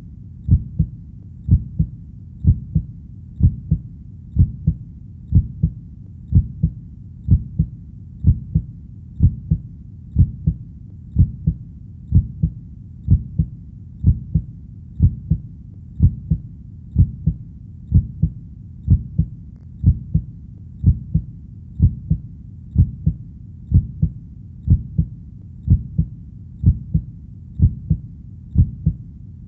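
Steady heartbeat: each beat is a low double thud (lub-dub), repeating evenly a little over once a second over a faint low rumble.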